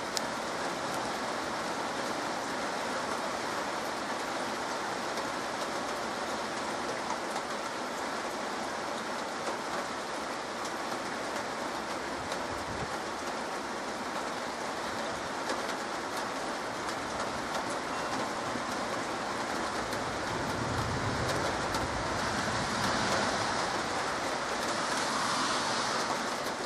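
Heavy summer rain pouring steadily, a dense hiss of drops on leaves and roofs. About twenty seconds in it swells louder for several seconds, with a low rumble underneath.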